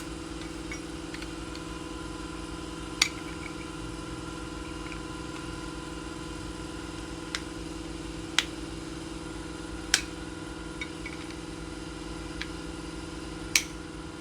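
Sharp clicks and taps, about six spread over the stretch, from the soldering stand's solder reel holder being handled, over a steady machine hum.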